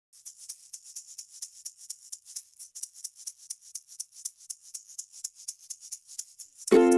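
Hand shaker shaken in a quick, even rhythm, a light rattling pulse that keeps time for the song. Near the end loud strummed ukulele chords come in over it.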